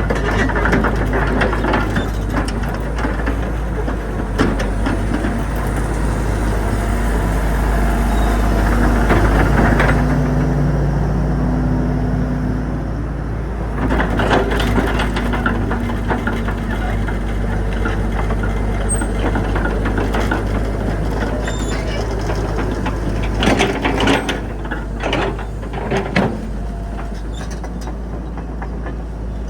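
Excavator's diesel engine running steadily, with a low hum that shifts in pitch partway through, and clusters of sharp clanks about halfway through and again near the end.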